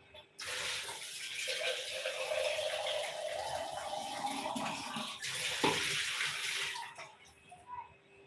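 Water running from a tap into a small steel bowl, the note of the stream rising as the bowl fills, then shut off about seven seconds in. A short clink against the metal partway through.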